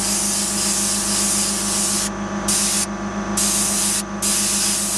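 Airbrush spraying paint onto T-shirt fabric: a steady hiss for about two seconds, then three short bursts of hiss, over a steady low hum.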